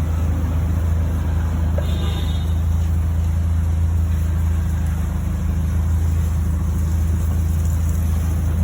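A car engine running at a steady speed, giving an even low hum that does not change.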